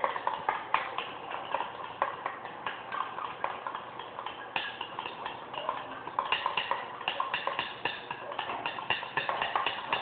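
A glue-and-detergent slime mixture being stirred in a container, the stirring utensil clicking and knocking against the sides several times a second. The knocks come faster and more regularly from about six seconds in.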